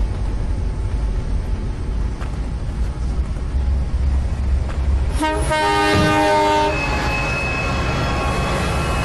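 Red Hen diesel railcar running past with a steady low rumble, then sounding its horn, several tones together, for about a second and a half about five seconds in. A thin high tone hangs on afterward.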